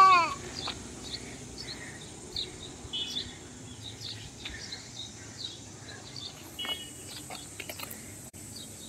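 A young child's loud wail trailing off about a quarter second in, then quiet outdoor background with scattered short, faint bird chirps.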